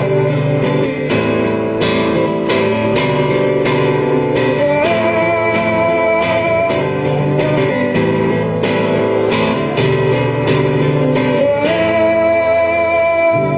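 Live song with strummed guitar, as an instrumental passage between verses: steady strumming under long held melody notes.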